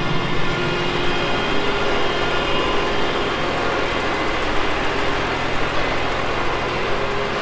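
Case tractor's diesel engine idling steadily.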